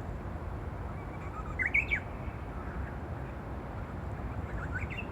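A songbird singing a short, quick phrase of sweeping notes about a second and a half in, and a fainter phrase near the end, over a steady low background hum. The recordist takes it for a Japanese bush warbler (uguisu) whose song does not yet come out as the full hō-hokekyo, as if still practising.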